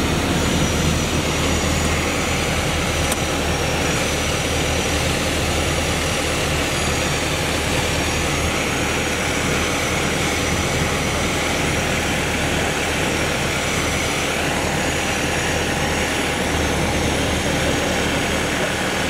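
Piper PA-28's piston engine and propeller droning steadily, heard from inside the cabin in flight.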